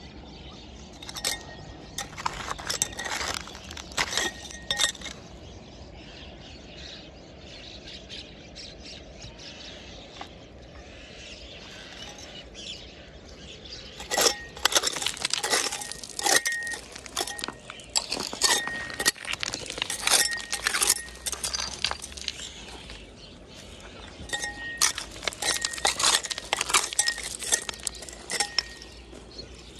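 Metal blade of a hand scraper scraping and striking gravelly dirt, with pebbles clinking against it and brief metallic rings. A few strikes in the first seconds, then a quieter stretch, and from about halfway through, dense rapid scraping and knocking.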